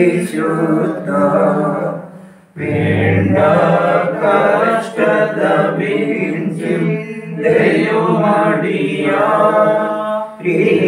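Voices chanting a sung prayer, with a brief pause about two and a half seconds in.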